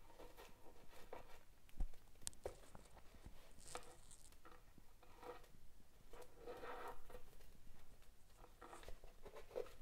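Faint rustling and soft scraping of waxed polyester cord being handled, passed between the fingers and pulled tight while tying macramé knots, with a few light clicks and a soft knock about two seconds in.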